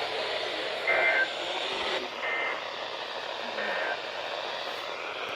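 Weather radio static hiss with three short digital data bursts about a second and a half apart, each a quick warble between two pitches. These are the SAME end-of-message tones that close the NWS severe thunderstorm warning broadcast.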